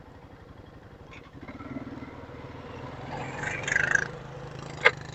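Four-wheeler engine running at low speed, a steady low hum that grows a little louder after the first second or so, with a brief noise about three and a half seconds in and a sharp click near the end.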